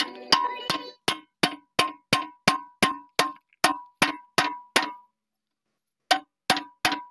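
Steel bucket pivot pin on a JCB 3DX backhoe being hammered out: a steady run of ringing metal-on-metal strikes, about three a second, with a pause of about a second after five seconds before the strikes resume.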